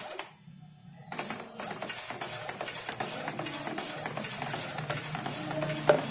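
Epson L110 ink-tank inkjet printer, its housing removed, printing a page: the print-head carriage shuttles back and forth with a fast, even mechanical clatter. There is a short quiet gap about half a second in and a sharper click near the end.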